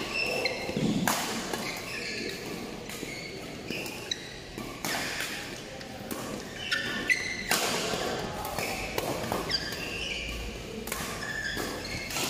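Badminton rackets striking the shuttlecock in rallies, sharp smacks at irregular intervals, mixed with short high squeaks of shoes on the court floor, echoing in a large hall.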